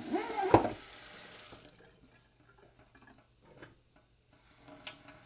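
Water pouring into a drip coffee maker's reservoir for about a second and a half, then stopping, followed by a few faint clicks.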